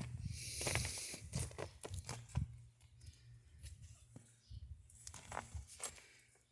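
Footsteps crunching through deep fresh snow in an irregular series, denser in the first couple of seconds and sparser later.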